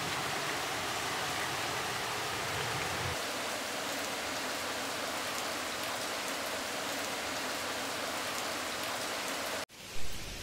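Steady rain, an even hiss of falling drops. It cuts off suddenly near the end, and a single short thump follows.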